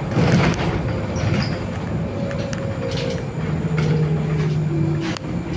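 Solaris Urbino 18 III articulated bus running and driving off, heard from inside near the front, with a steady rumble and a tone that slowly falls in pitch. A brief hiss near the start.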